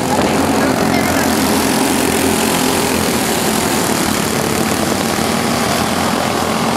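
A pack of racing go-karts with small engines running hard around a dirt oval, a steady, unbroken engine drone.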